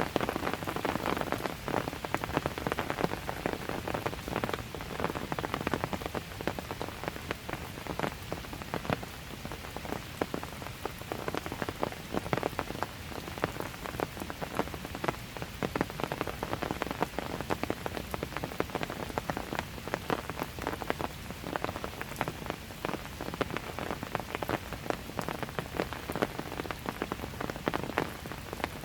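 Steady light rain, with many close raindrops pattering and dripping on hard surfaces.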